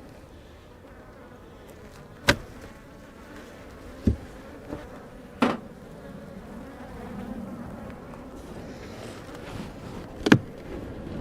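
Honey bees buzzing steadily around an opened hive, many of them out. Four sharp knocks fall through it, the loudest near the end.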